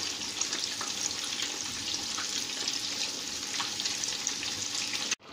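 Fish fillets shallow-frying in hot oil in a pan: a steady sizzle with small crackles and pops throughout.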